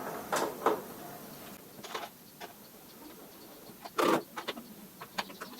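Hand tools clicking and knocking on the moped's front wheel axle as it is tightened: scattered sharp metal clicks, one louder knock about four seconds in, then a quick run of clicks.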